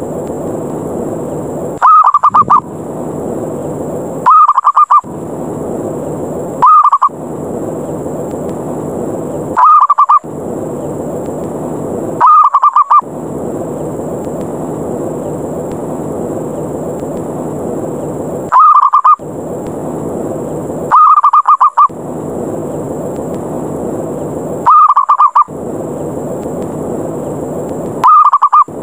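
Zebra dove (perkutut) lure call: nine short, loud, rapid stuttering coos, repeated every two to three seconds with a longer pause midway. It is the 'ngerot' challenge call, meant to provoke other zebra doves to fight. A steady rushing noise fills the gaps between calls.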